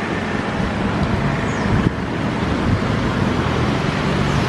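Twin-engine turboprop military transport plane flying low at takeoff power: a steady, loud drone of engines and propellers, with a low hum under a broad rushing noise.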